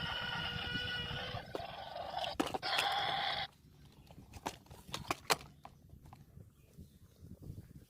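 Drawn-out animal calls: a long cry for the first second and a half and a second one about two and a half seconds in, each cutting off sharply. Then a few scattered clicks and knocks.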